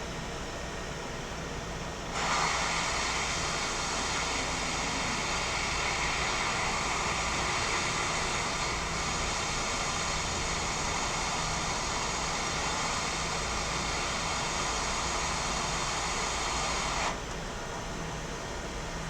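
Hot air rework station blowing on a laptop motherboard to reflow a freshly placed replacement chip: a steady airy hiss that starts abruptly about two seconds in and cuts off sharply near the end. A low steady hum runs underneath.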